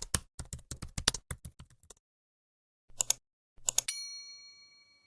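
Rapid keystroke-like clicks, a brief pause, a few more clicks, then a single bell-like ding that rings on and fades out: a typewriter-style typing-and-ding sound.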